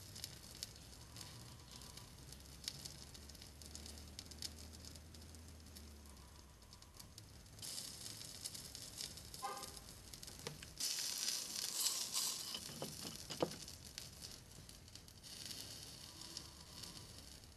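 Soldering flux paste sizzling under a hot soldering iron as solder wire is melted onto it. The faint hiss swells three times, loudest about two-thirds of the way through.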